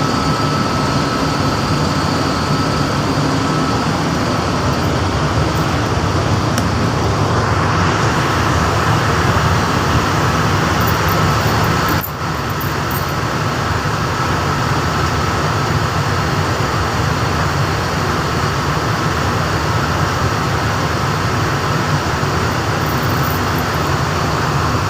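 Steady drone of running machinery, with a faint steady whine over it and a brief dip in level about twelve seconds in.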